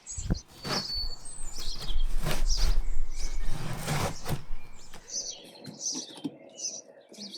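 A large cardboard package being opened and unpacked by hand: rustling, scraping and knocks of cardboard and packing material. It is loudest in the first five seconds, then turns to quieter, shorter rustles.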